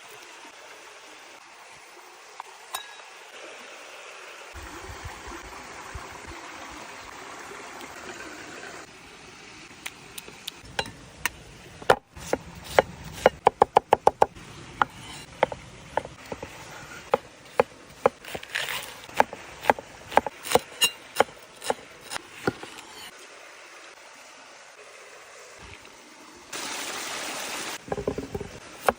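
Kitchen sounds while food is prepared: sharp clinks and knocks of utensils, with a quick run of them about halfway through and scattered ones after. Near the end there is a short steady hiss.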